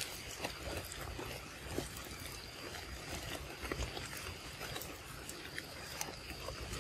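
Young macaque eating a ripe mango, with irregular wet clicks, smacks and squishes of chewing and biting into the fruit. A faint steady high tone runs underneath.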